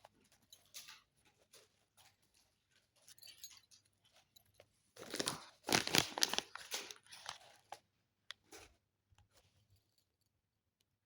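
Rustling and crinkling handling noise, a scatter of short crackles with a louder stretch about five to seven seconds in.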